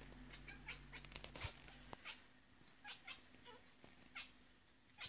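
A domestic cat giving a string of short, quiet chirps and meows, about ten separate calls, some falling in pitch.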